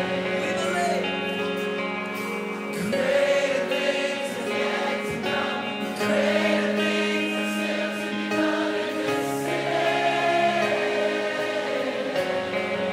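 Christian worship music: a choir singing long held notes over a sustained instrumental backing.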